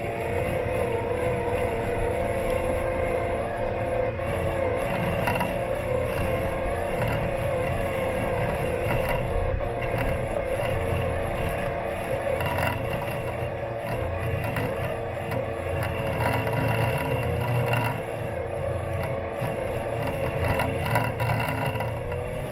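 Robot lawn mower running, picked up by a camera taped onto its body: a steady electric motor whine over a low rumble, with small scrapes and ticks as it moves over the grass.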